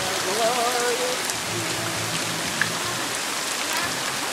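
Heavy rain pouring down steadily. A faint wavering voice sounds in the first second, and a single sharp tick comes about two and a half seconds in.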